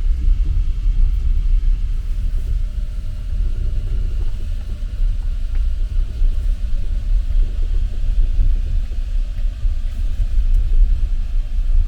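Steady low rumble of a moving passenger train running along the rails.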